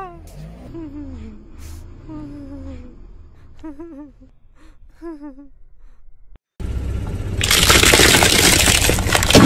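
A few faint, short squeaky cries falling in pitch. Then, after an abrupt cut, a loud dense crackling crunch as a car tyre crushes a ball coated in M&M candies, the candy shells cracking and scattering, growing louder toward the end.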